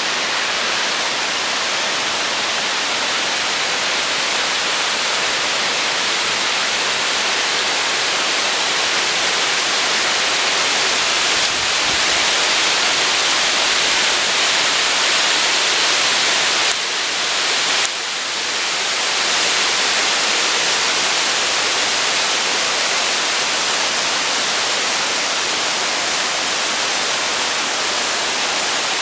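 Waterfall pouring steadily: a loud, even rush of falling water, with a brief dip in level for about a second just past the middle.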